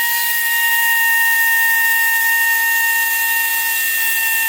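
Handheld high-speed power tool running at a steady, high-pitched whine as it works into a broken steel bolt, throwing off metal chips.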